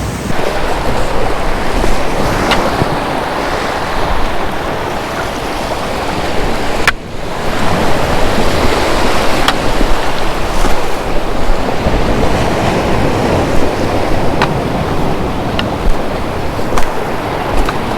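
Ocean surf washing on the shore with wind buffeting the microphone: a steady, loud rush of noise, with a brief break about seven seconds in.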